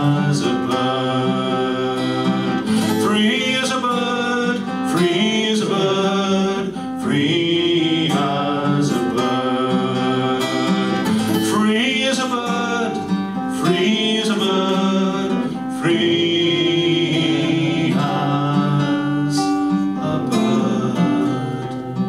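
A man singing to his own acoustic guitar in a live folk song, in long held phrases.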